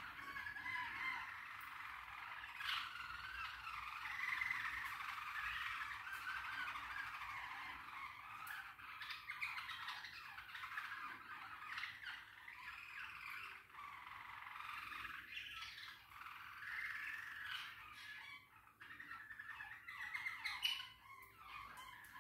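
Caged finches singing and chirping, a continuous twittering warble with a few sharp clicks, the loudest near the end.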